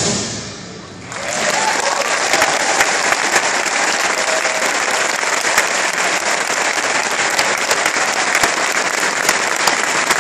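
The last chord of a school concert band dies away in the hall's reverberation. About a second in, an audience breaks into steady applause that keeps going.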